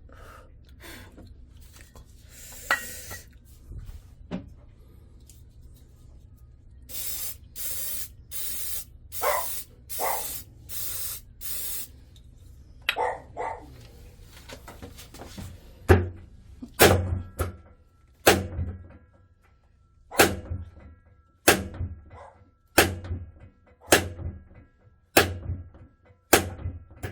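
Six short hissing bursts from a spray can, then a steady series of hard metal knocks about one a second, with a faint ringing between them: hammer blows on the bearing work of a drum washing machine.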